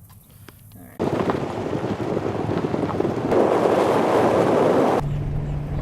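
Loud rushing of wind buffeting the microphone, starting suddenly about a second in and growing stronger partway through; a low steady hum joins near the end.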